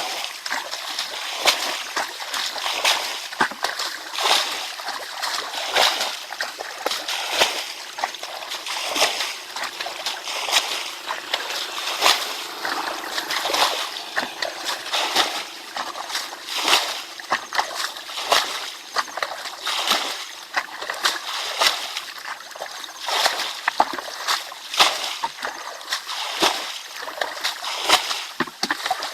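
Water splashing and sloshing over and over at an irregular pace, several splashes a second.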